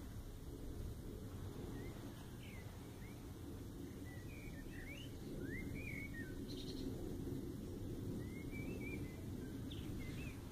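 Small birds chirping, short notes sliding up and down, scattered through, over a low steady rumble.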